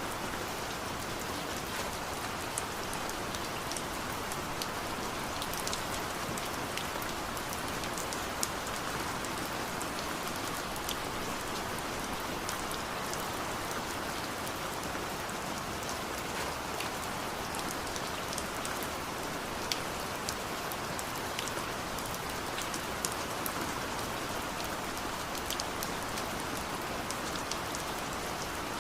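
Steady heavy rain falling, an even hiss with scattered sharp taps of drops landing close by.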